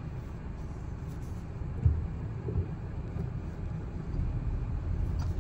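Subaru Forester driving slowly on a muddy road: a low, steady rumble of engine and tyres, with one thump about two seconds in.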